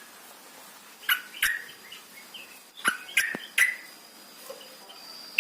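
Yellow-vented bulbul (trucukan) calling in short, sharp chirps: a pair of notes about a second in, then a quick run of several notes about three seconds in.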